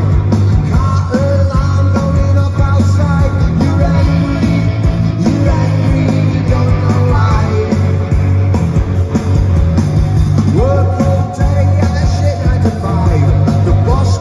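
Rock band playing live at loud volume, heard from among the crowd: electric guitars, bass guitar and drums, with sung vocals.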